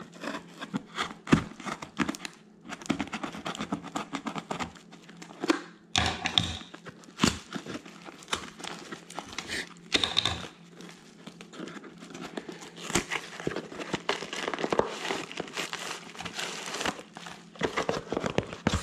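Packaging being unwrapped by hand: irregular crinkling and rustling with frequent sharp clicks and taps.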